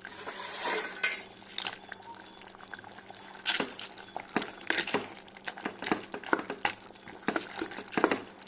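A metal spoon stirring and scraping in a cooking pot of moist, cooked tapioca and cauliflower, with irregular clinks against the pot.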